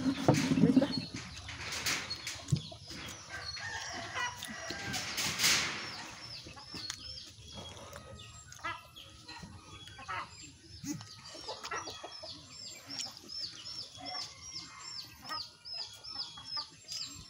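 Chickens nearby: a long run of short, high peeps repeating about three times a second through the second half, with louder noises in the first few seconds.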